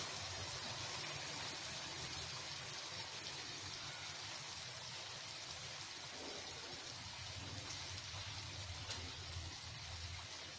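Steady soft hiss of vegetables simmering in a pan on a gas stove.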